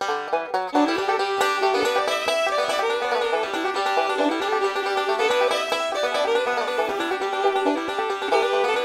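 Upbeat bluegrass-style background music: a quick plucked banjo melody.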